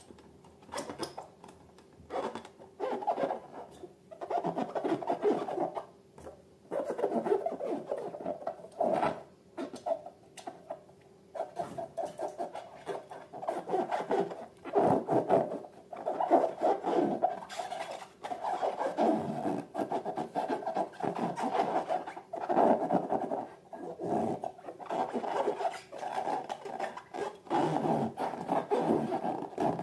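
Hands rubbing and squeezing rubber balloons and slime: irregular rubbing strokes a second or two long, with short pauses between them.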